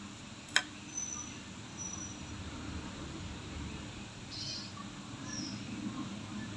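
A toenail nipper snaps shut once with a sharp click, followed by a few faint, brief high squeaks over a low steady background hum.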